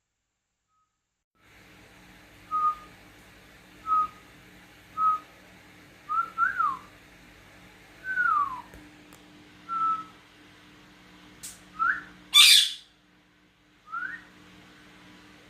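A back-and-forth of short whistled notes, about a dozen, some held level and some gliding down or up, between pet parrots and a person whistling. Around twelve and a half seconds one loud harsh screech cuts in.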